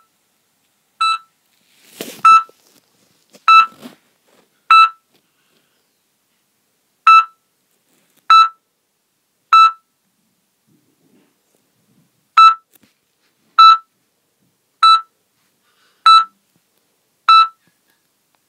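Patient heart monitor beeping: short identical electronic beeps about every 1.2 seconds, with two longer gaps. A brief rustle sounds about two seconds in.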